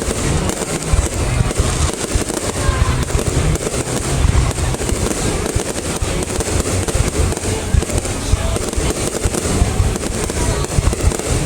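Fireworks display going off continuously: a dense, unbroken crackle of many overlapping bangs, heavy in the low end, with no pause.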